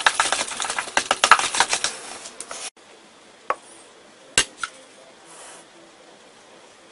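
A metal spoon stirring and scraping a sticky ground pork and shrimp filling in a metal pot, a quick busy clatter that stops abruptly about two and a half seconds in. Afterwards there are only a few faint separate clicks.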